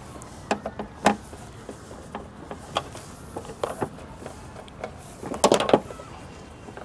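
Scattered clicks and small knocks of a screwdriver taking screws out of the back of an LED TV, with a short run of several clicks about five and a half seconds in.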